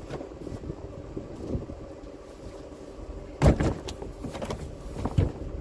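A vehicle engine running steadily at idle, with a loud sharp thump about three and a half seconds in and a smaller one near the end.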